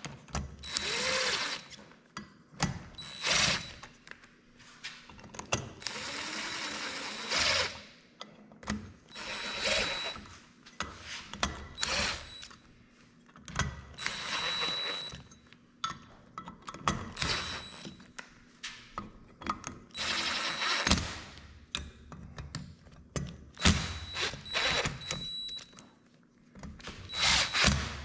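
Power drill running bolts in, in repeated short bursts of a second or two, each with a steady motor whine, and clicks and knocks of tools and parts between them. The bolts are only being run in, not torqued down.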